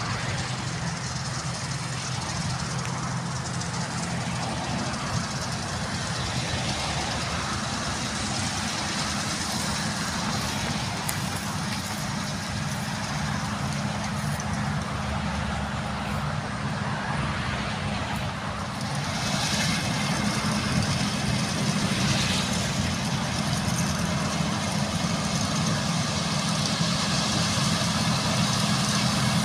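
Diesel engines of a tractor pulling a grain trailer and a Claas combine harvester running steadily as they work the field, a constant low hum under a broad machine din. The din gets louder about two-thirds of the way through.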